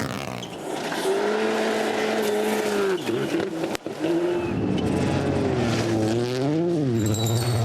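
Rally car engine running at high revs, holding a steady note with a short break about halfway through, then rising and falling quickly in pitch near the end.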